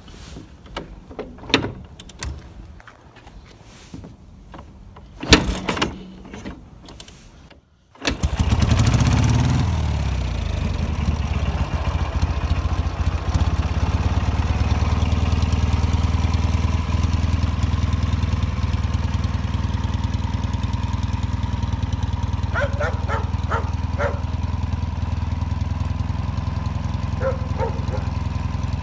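Scattered knocks and clicks of hands on the motorcycle, then, about eight seconds in, the M-62 sidecar motorcycle's flat-twin engine running, loudest at first and settling to a steady idle. A dog barks a few times near the end.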